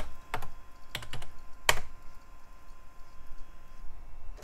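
Keystrokes on a computer keyboard: about five sharp clicks in the first two seconds, the last one the loudest, as a shell command is typed.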